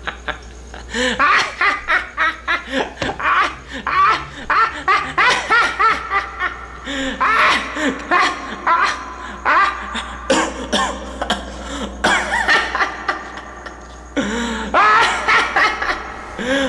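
A man laughing heartily in long runs of short, repeated laughs, broken by brief pauses.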